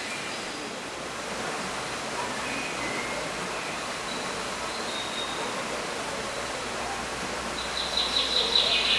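Steady, even rushing noise of the greenhouse ambience, with a bird's rapid chirping trill coming in over it near the end.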